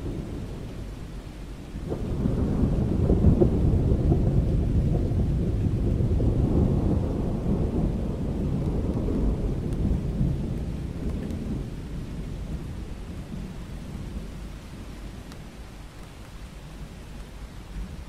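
A long roll of thunder in a rainstorm: the rumble comes in suddenly about two seconds in, stays loud for several seconds, then slowly dies away, with steady rain falling throughout.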